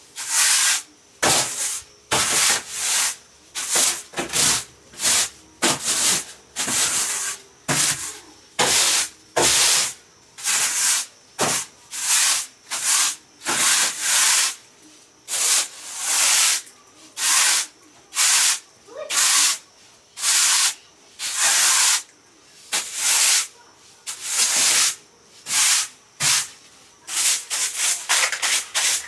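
A broom sweeping a bare floor: brisk, scratchy strokes, about two a second, with short breaks between them.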